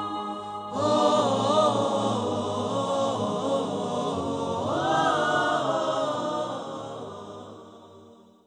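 Chanted vocal music: a sung melodic line with wavering, held notes over a steady low drone. A new phrase comes in about a second in, and the music fades out over the last two seconds.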